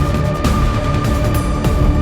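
Dark electronic music: heavy bass under a held high tone, with crashing full-range hits every second or so.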